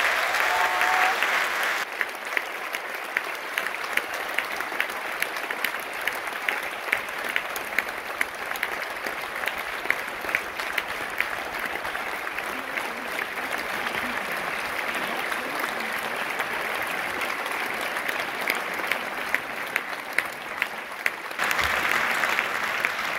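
Theatre audience applauding steadily, with single sharp claps standing out above the crowd's clapping. The applause is louder for the first two seconds and swells again near the end.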